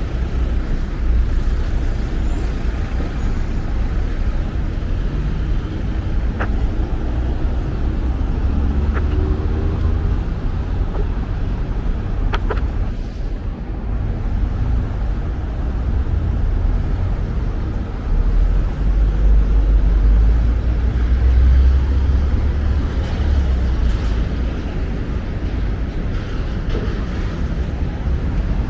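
Street traffic: a steady low rumble of passing cars and other motor vehicles, heaviest about two-thirds of the way in.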